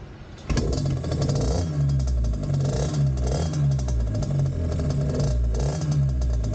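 Small 50cc mini trail bike engine catching about half a second in and then running, the pitch rising and falling as the throttle is blipped.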